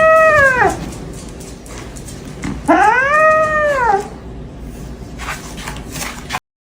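Domestic cat meowing: two long, drawn-out meows that rise and then fall in pitch. The first is already under way and trails off within the first second; the second comes about two and a half seconds in and lasts about a second and a half.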